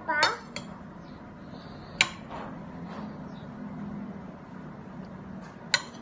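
Two sharp clinks of a spoon against a plate, about two seconds in and again near the end, over a steady low hum.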